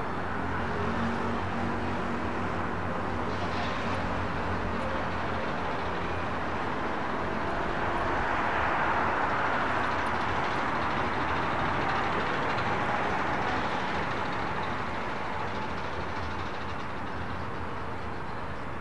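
Train rolling past: a steady rumble that swells to its loudest around nine seconds in and then eases.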